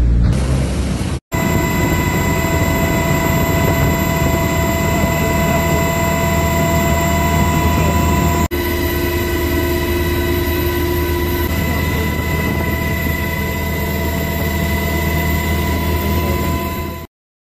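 Aircraft engines running steadily, a loud rushing noise with a steady high whine on top. It is cut off briefly about eight and a half seconds in and stops abruptly near the end.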